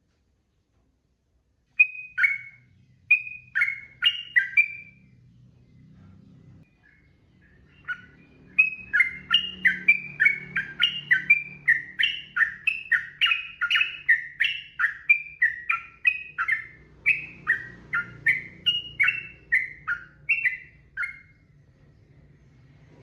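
Yellow-vented bulbul singing. A few short bubbling phrases give way, after a pause, to a long quick run of falling whistled notes, about three a second, over a faint low hum.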